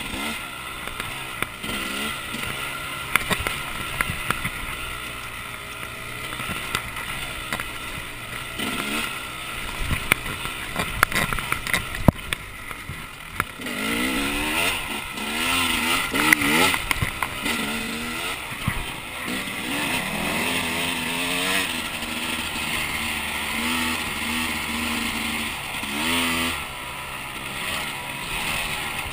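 Two-stroke engine of a 2011 KTM 300 dirt bike, revving up and down continually while riding a rough trail, with frequent sharp knocks from the bike over the bumps.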